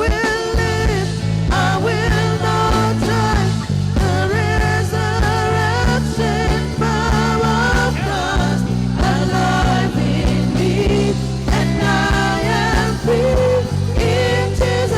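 Worship music from a live band, with held chords that change every couple of seconds, a steady drum beat and singing voices over them.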